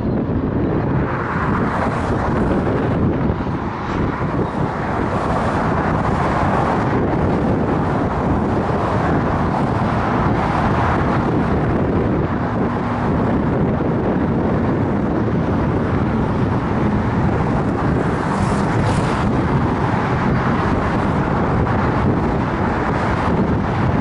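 Steady wind buffeting the microphone, a constant rushing noise that never lets up.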